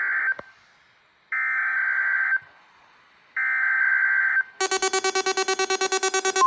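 NOAA Weather Radio SAME alert header: harsh digital data bursts lasting about a second each, three in a row with about a second of quiet between them. Near the end a loud, rapidly pulsing electronic alarm starts.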